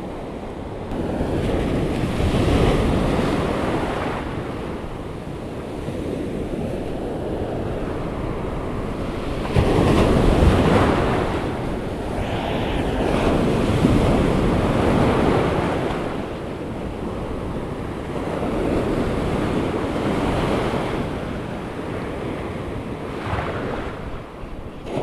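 Rough surf breaking on a beach, the wash swelling and easing every few seconds with its loudest surge about ten seconds in. Wind buffets the microphone throughout.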